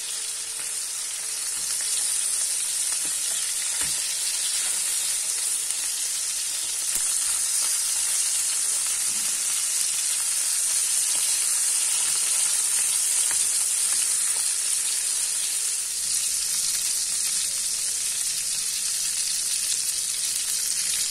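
Mutton sausages sizzling steadily as they fry in their own fat in a pan, a high, even hiss, with a few soft knocks as tongs turn them.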